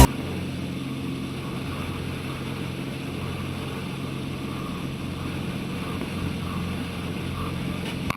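Steady running noise of a vehicle engine: a constant low hum under an even rumble, with no sudden impacts.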